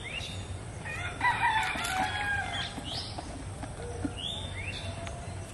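A rooster crowing once, about a second in, with short rising chirps from small birds around it.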